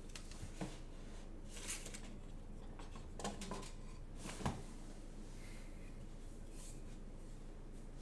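Room tone with a steady low hum, broken by a few scattered soft clicks and rustles, the sharpest about four and a half seconds in. No typing on the keyboard.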